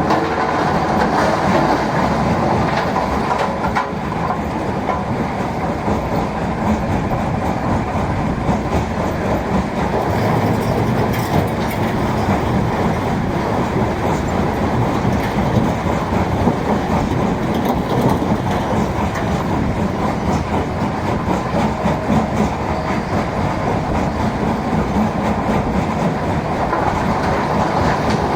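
A mobile stone crusher and a Volvo excavator's diesel engine running together, giving a loud, steady, dense machinery noise.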